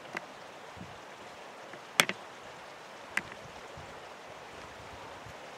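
Steady rushing noise broken by a few sharp clicks, the loudest about two seconds in.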